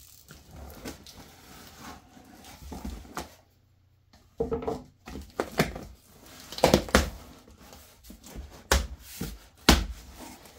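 Box cutter slitting packing tape on a cardboard box, then the tape being pulled off and the cardboard flaps opened. Quiet scraping at first, then several sharp knocks and rustles of cardboard in the second half.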